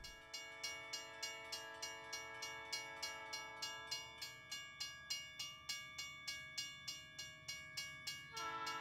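Quiet closing jingle: a held chord of several notes over steady clicking, a little over two clicks a second. The chord thins about four seconds in and shifts to a brighter chord near the end.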